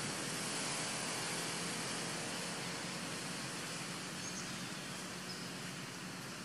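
Steady outdoor background hiss that slowly fades, with two faint high chirps about four and five seconds in.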